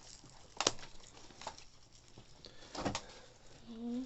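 A few sharp clicks and taps from the radio and its papers being handled, the clearest about a second in and again near three seconds, followed by a short low rising hum from a person's voice just before the end.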